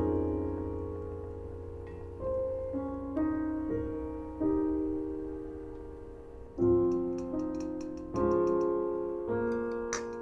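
Soft piano music: slow chords and single notes, each struck and left to fade, with a new one every second or two.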